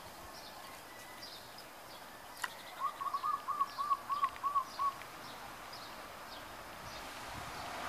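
Zebra dove cooing: a quick run of about seven short, even, rise-and-fall notes lasting about two seconds. Faint high chirps sound throughout, and there is a single click just before the cooing.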